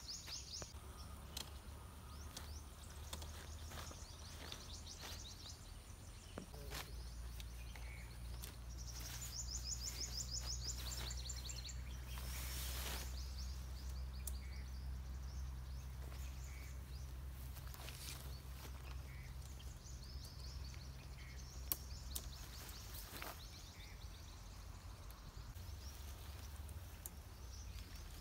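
Outdoor forest ambience: birds trill in quick high runs now and then, over a low steady hum. Light clicks and rustles come from tent poles and nylon fabric being handled while a dome tent is pitched.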